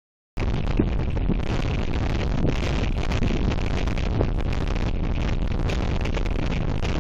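Strong gusty wind buffeting the outdoor nest camera's microphone: a steady, dense rushing noise heaviest at the low end, cutting in abruptly from silence just after the start.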